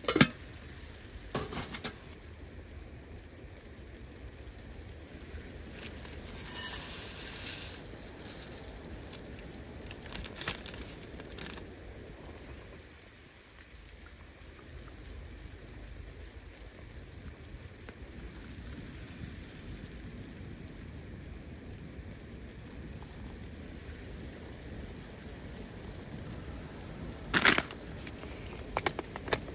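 Steady, rain-like patter and hiss inside a wood-stove-heated tent, with a sharp clink just at the start as a lid is set on a metal pot, a few quieter knocks and clicks, and a louder double knock near the end.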